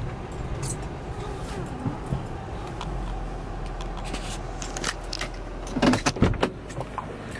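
Car engine idling, heard from inside the cabin as a steady low hum with scattered small clicks. About six seconds in there is a louder cluster of knocks and clunks as the automatic gear selector is moved.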